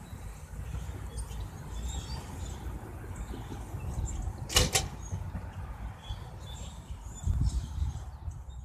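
Wind rumbling and buffeting on a phone microphone outdoors, with one short, sharp high sound about four and a half seconds in and a louder gust near the end.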